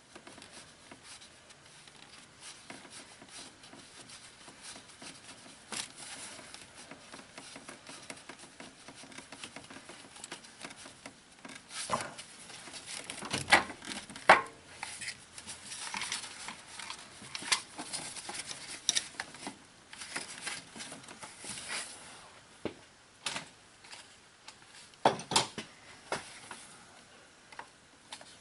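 Gloved hands handling and working at the distributor in the engine bay: scattered clicks, taps and knocks of plastic and metal with rustling. The loudest knocks come in a cluster around the middle and a pair near the end.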